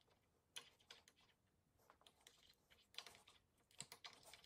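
Near silence broken by a few faint, scattered clicks and taps from a spoon stirring a thick paste in a small glass bowl.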